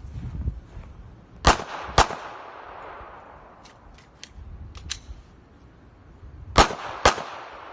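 Handgun fired as two double-taps about five seconds apart, the shots in each pair half a second apart, each shot trailing off in reverberation. A few fainter sharp clicks fall between the pairs.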